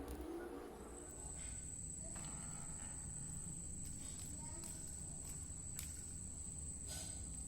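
Faint clicks and taps of a hex key working the derailleur's pulley bolts, over a steady high-pitched whine that starts about a second in.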